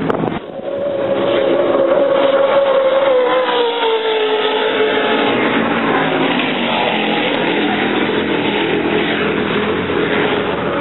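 Offshore racing powerboat engines passing at high speed, the engine note falling in pitch as the boat draws away, with another race boat's engine note rising in near the end.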